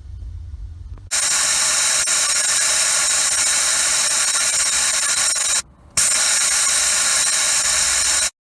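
Loud steady hiss of a pressurized spray jet, switched on abruptly about a second in after a low rumble. It cuts out for a moment past the middle, then resumes and stops suddenly near the end.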